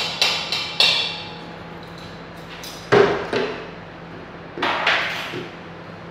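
Irregular sharp knocks and clatter, each with a brief ring, as hard containers and utensils strike stainless steel mixing bowls and the tabletop. There are about four in the first second, two around the middle and three more near the end.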